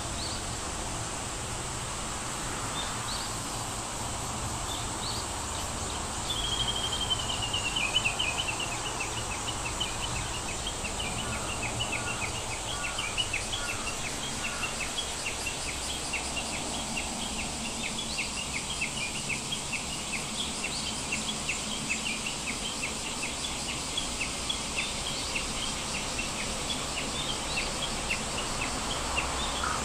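Outdoor ambience: a bird gives a falling trill about six seconds in, then repeats short high chirps about twice a second, over a steady background hiss.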